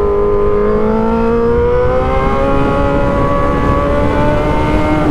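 Yamaha YZF-R6 sport bike's inline-four engine running under way, its pitch climbing slowly and smoothly as the bike gathers speed, then levelling off near the end, over steady wind noise.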